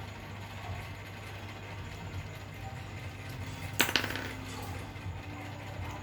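A single sharp metallic clink a little under four seconds in, a small metal object striking a hard surface, with a brief ringing after it, over a steady low hum.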